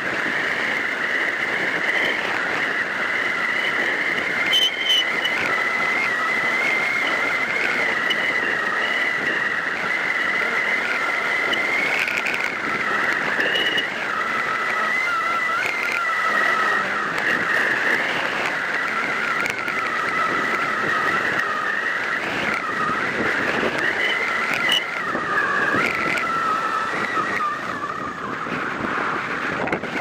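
Airflow rushing over a hang glider in flight, heard as loud steady wind noise on the camera with a high whistle that wavers slightly in pitch.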